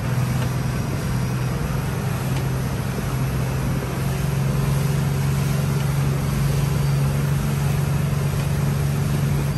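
Yanmar Arashio DE31F fishing boat's inboard diesel engine running under way at cruising speed, a steady drone that rises slightly in pitch in the first few seconds, over the rush of the wake and wind.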